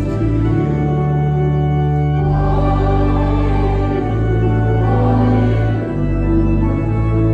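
Church organ playing slow held chords that change every second or two, with voices singing along.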